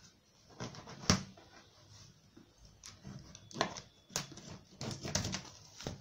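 Cardboard box flaps being pulled open and handled: a scatter of short cardboard scrapes and rustles, around a second in, again around 3.5 to 4 seconds, and a cluster near 5 seconds.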